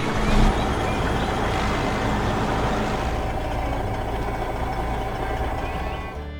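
A heavy vehicle engine sound effect running steadily: a dense mechanical rumble over a low hum, with a brief louder jolt about half a second in.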